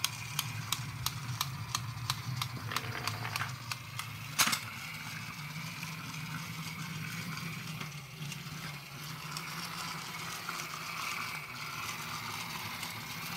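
Battery-powered plastic Dalmatian transforming toy running: its small motor and gears whir, with rhythmic plastic clicking at about three a second for the first few seconds and one sharp clack about four seconds in, then a steady whirring.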